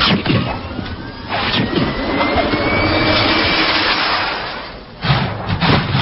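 Cartoon sound effect: a loud, machine-like rushing noise with a thin whistle rising slowly through it. It swells about a second in, dies away near five seconds, then returns in a sudden burst.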